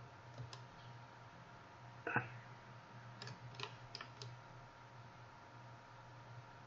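A few quiet computer mouse clicks: a louder one about two seconds in, then four close together between about three and four seconds, over a faint steady low hum.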